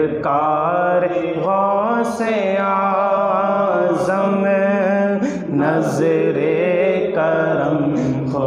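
Male voice singing a slow Urdu devotional manqabat, drawing out long held notes that bend slowly in pitch.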